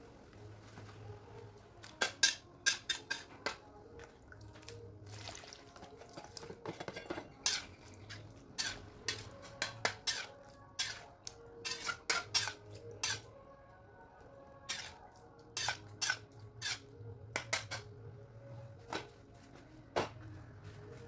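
Kitchen utensils and cookware clinking: irregular sharp clinks, at times several in quick succession, over a faint low hum.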